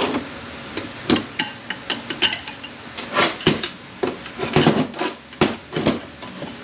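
A string of sharp metal clinks and knocks, uneven in spacing, from the steel internal parts of an A650E automatic transmission being handled and knocked apart on the bench while a unit is opened up to check its O-rings.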